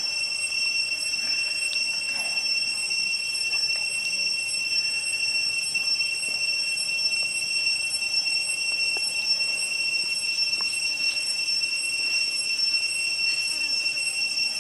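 A steady, high-pitched insect drone: one unbroken whine with overtones above it, over a soft rush of stream water. A couple of faint knife clicks on the chicken and log.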